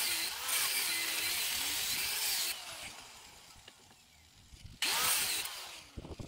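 Angle grinder cutting through a steel sway-bar drop link in two bursts: one running for about two and a half seconds, then a shorter one of about a second near the end. Its pitch wavers as the disc loads up in the cut.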